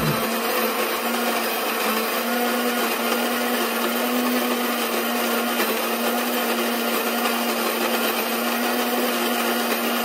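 Cuisinart electric coffee grinder running steadily, grinding whole coffee beans at its finest setting for espresso: a loud, even motor hum under a dense grinding rush.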